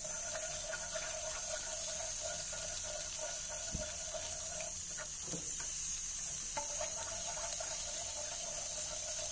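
Fish-sauce and chili sauce heating and bubbling in a frying pan while it is stirred with wooden chopsticks: a steady wet hiss with small ticks and a few light knocks of the chopsticks.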